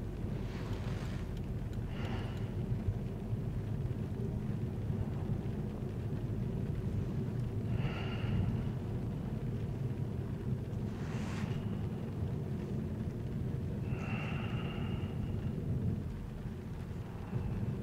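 Steady low rumble of a vehicle driving, heard from inside the cabin, with a few brief higher-pitched sounds over it.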